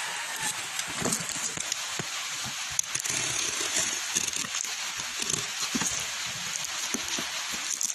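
A plastic parcel pouch and its packing tape being handled and cut open, with irregular small crinkles and clicks over a steady hiss.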